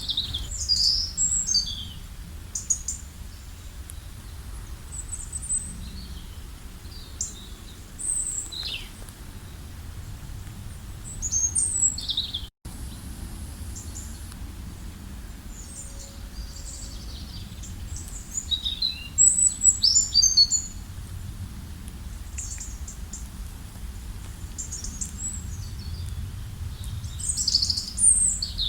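Small birds chirping and trilling in short, high bursts every few seconds, busiest in the second half, over a steady low rumble of background noise. The sound cuts out for an instant a little under halfway through.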